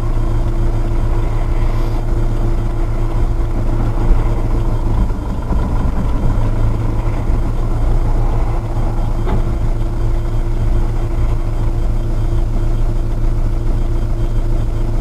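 A motor vehicle's engine running at a steady speed: a constant low drone. There is a faint knock about four seconds in.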